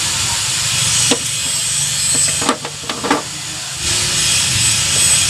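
A steady loud hissing rush with a few sharp clicks or knocks between about one and three seconds in. The hiss briefly drops soon after the clicks start.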